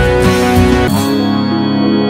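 Background music: a steady beat with held chords, where the beat and the bright top end drop out about a second in, leaving sustained tones.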